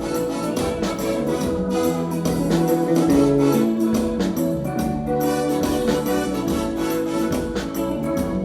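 Gospel music: held keyboard chords over a steady beat.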